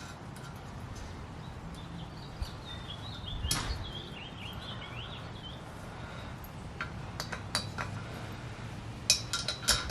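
Small metal parts of a garage door opener rail clinking and tapping as they are handled: a few scattered clicks, then a quick cluster of metallic clinks near the end. A bird chirps in the middle, over a steady low hum.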